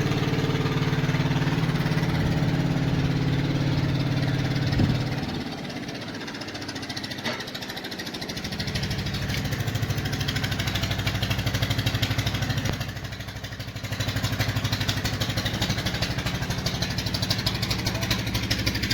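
An engine running with rapid, even firing pulses. It drops to a quieter run twice, from about five to eight seconds in and again around thirteen seconds, with a single sharp knock just before the first drop.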